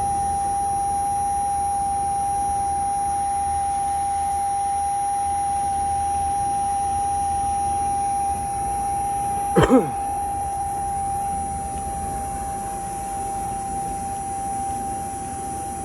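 A steady high-pitched whine, one unchanging tone, runs through the whole clip; it is unwanted noise on the recording. About ten seconds in there is a brief thump with a quick downward sweep in pitch.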